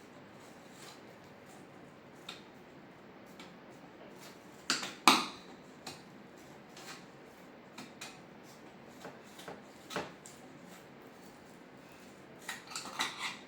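Scattered light clicks and scrapes from hands working on a TV's LED backlight strip, with a louder scrape about five seconds in and a quick run of clicks near the end.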